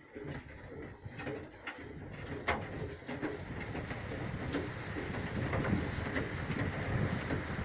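Honey extractor spinning a load of honey frames in its steel tank as it gathers speed, a whirring rumble that grows steadily louder, with scattered clicks and knocks in the first few seconds.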